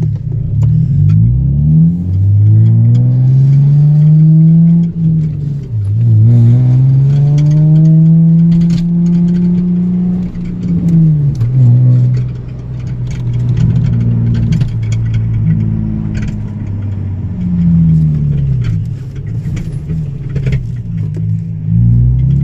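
Nissan 350Z's VQ35 3.5-litre V6 accelerating through the gears. Its pitch climbs twice with a drop at the shift in between, eases off about halfway through, holds a steady cruise, then picks up again near the end. The engine pulls smoothly, with no misfire evident at the moment.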